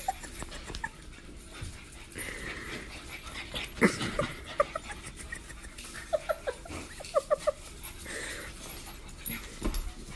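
A pug whimpering in short, high whines, with a quick run of them about six to seven and a half seconds in. There is a sharp thump about four seconds in.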